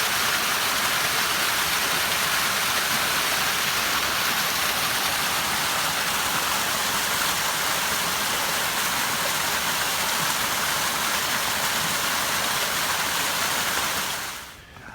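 Small mountain creek running close by: a steady rush of flowing water, cutting off sharply about a second before the end.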